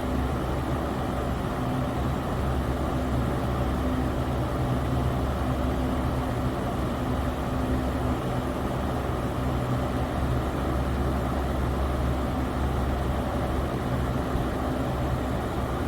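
Electric fan running steadily: a constant whoosh of moving air with a low motor hum underneath.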